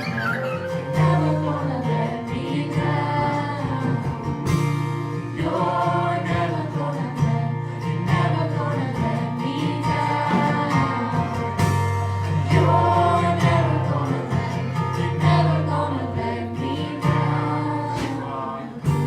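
Gospel-style worship song: voices singing together over a band with guitar and bass accompaniment.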